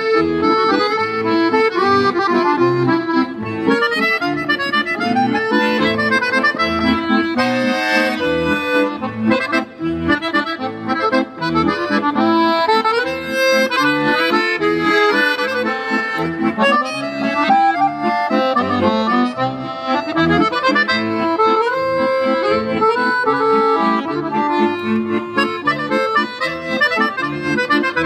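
Two piano accordions playing a duet: a melody line over a steadily pulsing bass and chord accompaniment, without a break.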